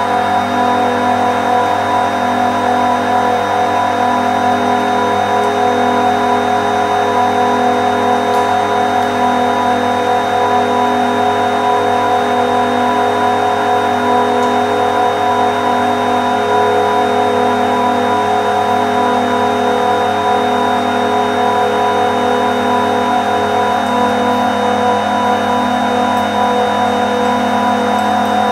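A rack of industrial compressors running steadily, a loud, unchanging machine-room hum with several fixed whining tones.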